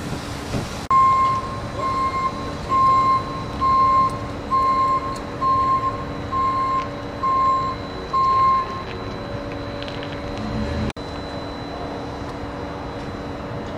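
A vehicle's reversing alarm beeping nine times, about once a second, over a steady background hum, then stopping.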